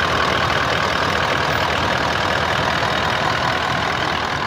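Toyota Land Cruiser engine idling steadily.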